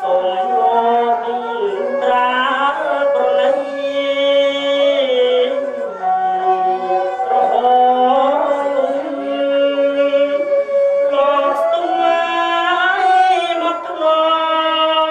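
Traditional wedding music: a voice singing over melodic instruments that hold and slide between notes, without a break.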